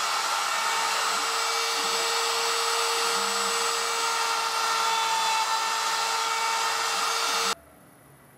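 CNC router spindle running with a steady high whine while a quarter-inch spiral bit bores holes in half-inch Baltic birch plywood. The sound cuts off suddenly near the end.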